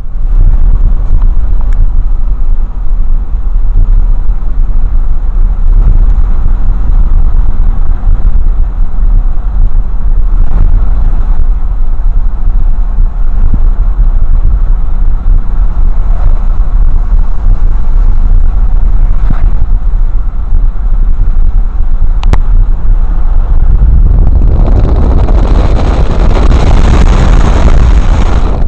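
Car driving, heard from inside the cabin: a steady, loud low rumble of road and engine noise. A louder, hissier rush swells in over the last few seconds.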